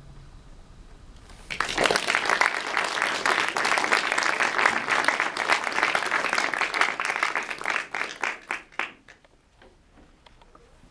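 Audience applause, breaking out about a second and a half in, holding steady, then thinning to a few scattered claps and dying away near the end.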